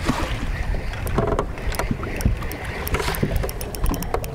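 Choppy lake water slapping and knocking against an aluminum boat's hull, with wind on the microphone and many short, sharp clicks and knocks.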